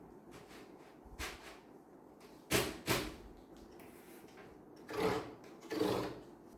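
Hard objects being handled: a light knock about a second in, two sharp clacks around two and a half seconds in, then two longer, duller knocks near the end.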